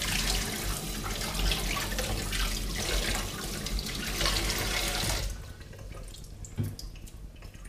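Kitchen sink tap running, the stream splashing over a beef brisket held under it and into the sink as the cure is rinsed off. The flow stops suddenly about five seconds in, leaving quieter handling of the wet meat and a light knock.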